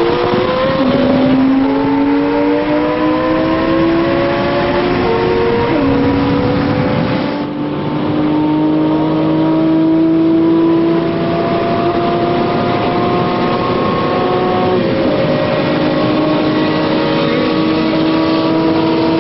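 Car engine at full throttle at high speed, its pitch climbing slowly through each gear and dropping back at upshifts about a second, six seconds and fifteen seconds in. The sound changes abruptly about seven and a half seconds in.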